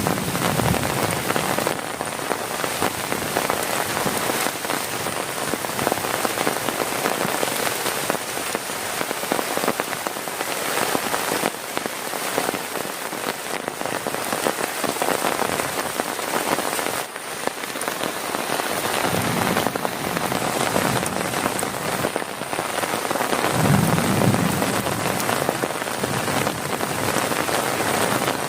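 Heavy rain falling steadily on a camping tent and plastic tarp, a dense, even patter, with two brief low rumbles in the latter part.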